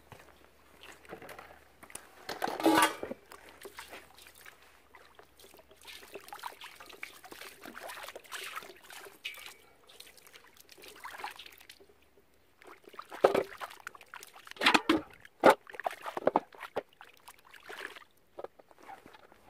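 Water splashing and sloshing in a plastic basin as short pieces of lacquer-tree branch are scrubbed and handled. There are sharp knocks of wood, loudest about three seconds in and again in a cluster near the end, as the pieces are set into a steel bowl.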